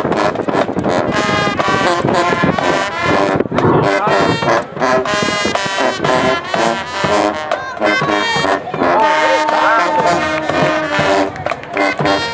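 Marching band playing: brass horns with drums keeping a steady beat.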